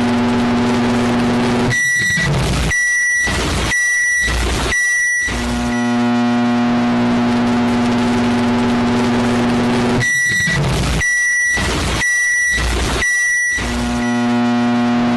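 Microwave oven running with a steady electrical hum that cuts out about two seconds in. Four short high beeps follow about a second apart, then the hum starts again. The same stop, four beeps and restart repeats near the end.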